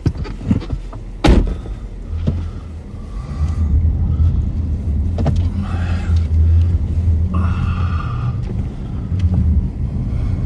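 Car engine and tyres rumbling, heard from inside the cabin as the vehicle pulls away and turns through snow. There is a sharp thump about a second in, and the low rumble builds from about two seconds in.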